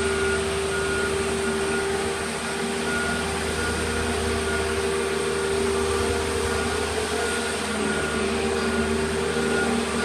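Heavy machinery running steadily while unloading a boat, a constant hum with a steady whine over it.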